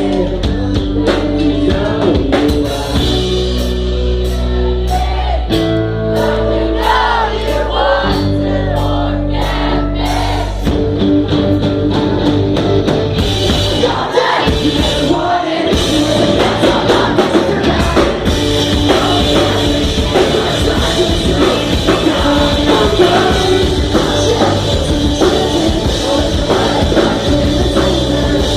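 Live rock band playing with singing. Held chords carry a quieter stretch in the first part, and the full band with drums comes back in from about halfway.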